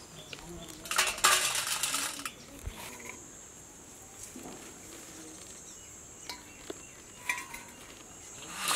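Dried winged termites poured between a stainless steel bowl and a woven bamboo winnowing tray: a rushing rattle lasting about a second near the start, then lighter clinks and rustles, with another short rattle near the end.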